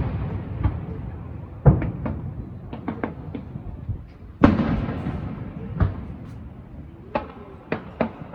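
Aerial fireworks shells bursting: two big booms, about two seconds in and again near the middle, each trailing off in a long rolling echo, with a scatter of smaller, sharper cracks between them.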